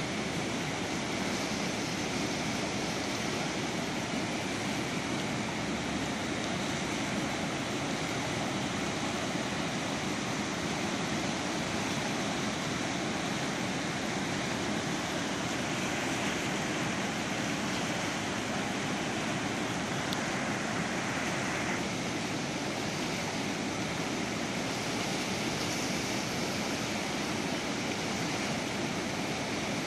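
Steady rushing and churning of the fast, silt-laden Panjkora River, an even unbroken wash of water noise.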